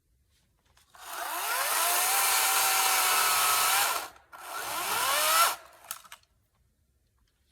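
Ryobi 40-volt battery chainsaw, its electric motor whining up to speed with a rising pitch and running for about three seconds. It is then triggered again for a shorter burst of about a second and a half.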